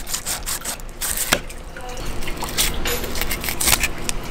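Fillet knife cutting and scraping along a black grouper's backbone, with the wet, slippery fish flesh squelching under the hand: irregular wet clicks and scrapes.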